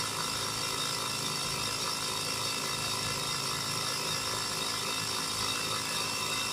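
Air compressor running steadily while inflating a freshly mounted tire, before the bead has seated.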